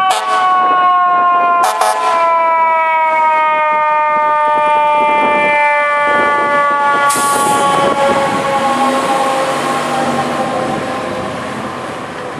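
Fire engine's mechanical siren coasting down after being spun up, its pitch falling slowly and steadily over about eight seconds. There are a few short sharp blasts in the first two seconds and a brief hiss about seven seconds in, and the truck's engine is heard as it pulls away.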